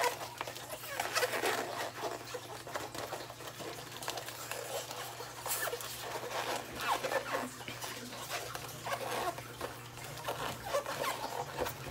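A custom printed chip bag crinkling and rustling as it is squeezed and pinched by hand, in irregular short crackles.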